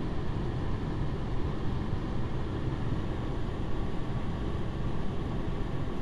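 Steady low rumble inside a truck's cab with the engine running.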